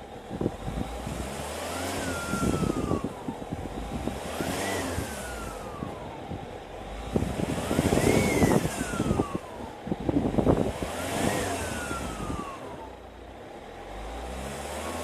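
Ford Mondeo Mk4 2.0 TDCi diesel engine revved four times. Each rev brings a turbo whistle that rises quickly and then falls away more slowly as the revs drop.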